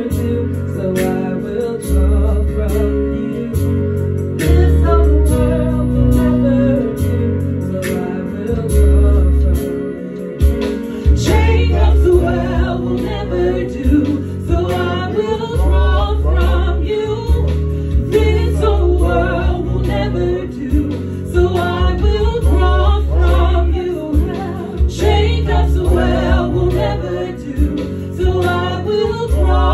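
Gospel worship song: a woman's lead voice with backing singers, over a Yamaha Motif 8 synthesizer keyboard playing chords and deep bass notes.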